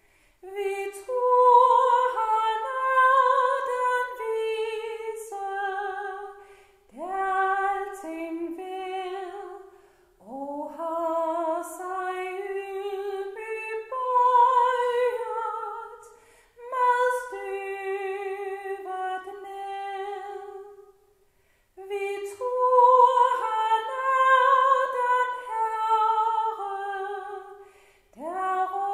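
A woman singing a Danish hymn solo and unaccompanied, in sustained phrases with vibrato, pausing briefly for breath between lines.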